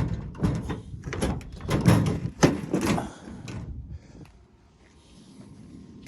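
A quick run of knocks and bumps for about three and a half seconds, then only faint steady background noise.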